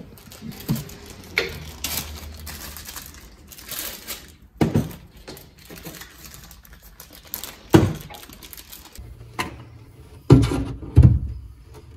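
Handling noises: plastic crinkling and a few scattered knocks, then two loud knocks close together near the end as rubber hockey pucks are set down on plywood.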